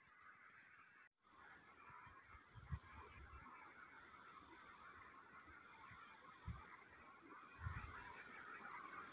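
Quiet outdoor ambience carried by a steady, high-pitched insect drone, with a few soft low thumps of footsteps through the undergrowth.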